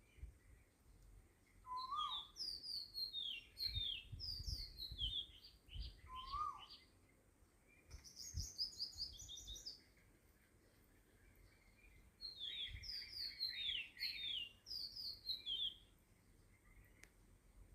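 Birds chirping in several quick bursts of short high notes that fall in pitch, with a lower rising-and-falling call twice. A few dull low thumps sound underneath.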